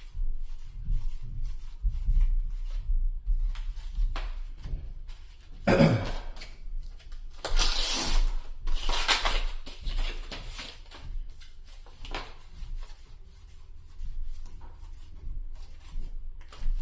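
Trading cards and foil booster-pack wrappers being handled: irregular light clicks and taps of cards, with a louder crinkling rustle about six seconds in and again around eight to nine seconds, over a low steady hum.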